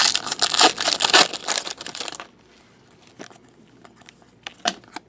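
Foil wrapper of a football trading-card pack crinkling and tearing for about two seconds, then a few scattered light taps and clicks.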